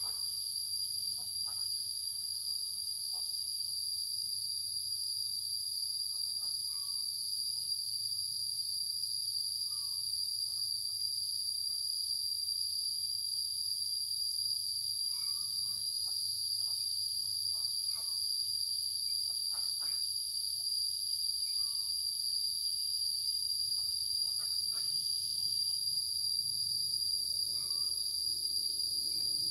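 Steady, high-pitched drone of an insect chorus, unbroken throughout, with a few faint short sounds scattered through it.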